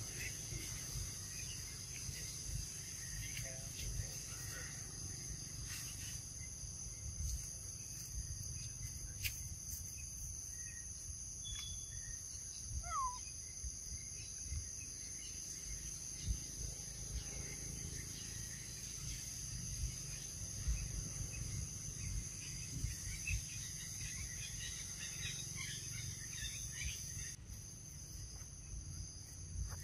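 Steady high-pitched drone of insects in two even pitches, over a low rumble, with a few faint chirps and clicks.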